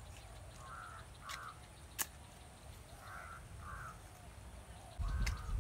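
Crows cawing, in repeated pairs of short caws. A sharp click about two seconds in, and a low rumble starting near the end.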